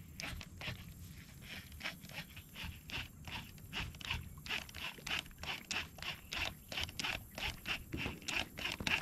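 Baitcasting reel being cranked to retrieve line, giving a light, even ticking about three or four times a second.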